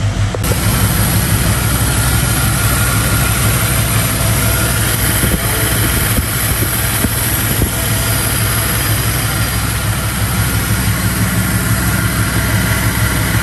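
1996 Chevrolet Impala SS's LT1 V8 idling steadily, with a steady hiss over it that comes in about half a second in.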